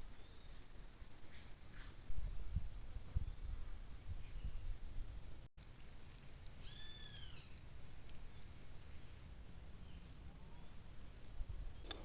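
Crickets chirping in a steady, high-pitched pulsing trill. A single short call that rises and falls comes about halfway through, and low rumbling knocks come about two to three seconds in.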